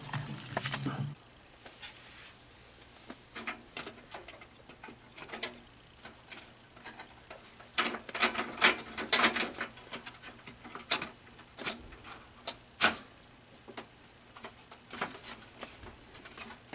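Scattered clicks, taps and knocks of a GeForce GT 630 graphics card being handled and fitted into the expansion slot of an open desktop computer case, with a dense cluster of clicks in the middle and a few single sharp clicks later.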